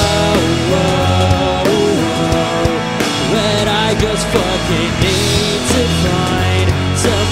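A rock trio playing live: drum kit with crashing cymbals, electric bass and electric guitar, loud and steady, with a melody line on top that bends up and down in pitch.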